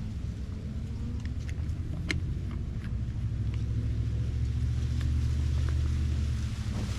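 Low rumble of a passing motor vehicle, growing to its loudest about five or six seconds in and then dropping away. A few light clicks and taps sound over it early on.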